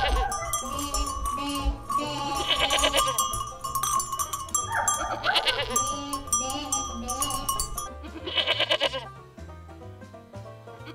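Background music with a goat bleating over it, a quavering bleat about every three seconds, four times.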